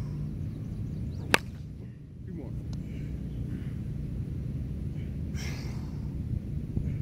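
Softball bat hitting a pitched softball once: a single sharp crack about a second in, over a steady low outdoor rumble.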